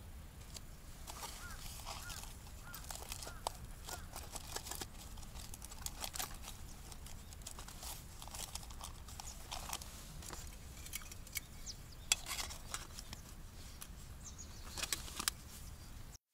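Faint scattered clicks and light rustling of small objects being handled, with a few short chirps in the first few seconds.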